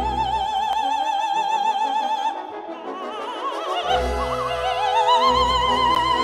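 Operatic soprano singing over an orchestra. She holds a long high note with wide vibrato, then climbs through a short run to a higher held note about five seconds in, with low orchestral notes swelling underneath.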